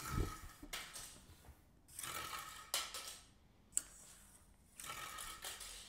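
Plastic propeller of a 3D-printed rubber-band plane whirring in several short bursts, with a knock near the start and two sharp clicks in the middle.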